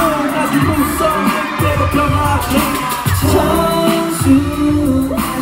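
Live K-pop music at a concert: singing over a pop track with a steady beat, played loud through the sound system.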